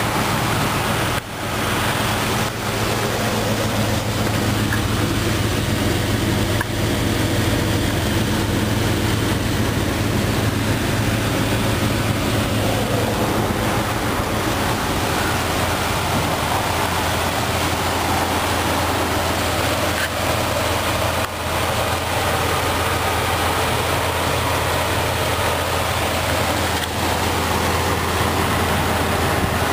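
2000 Jeep Grand Cherokee's 4.0-litre PowerTech inline-six idling steadily.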